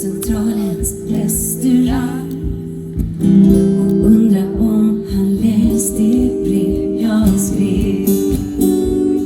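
Live band music: a strummed acoustic guitar over sustained chords, with a woman singing the melody.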